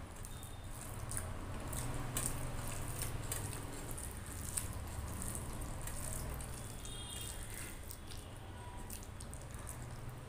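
Wet, squishy clicks of fingers mixing and squeezing cooked rice with curry on a steel plate, along with chewing.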